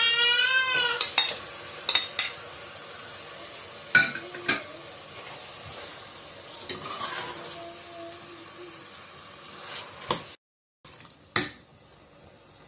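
Marinated chicken going into a hot aluminium pressure cooker of frying masala and sizzling, with a brief squeal as it tips in. A spoon then scrapes the pot and knocks against its sides several times.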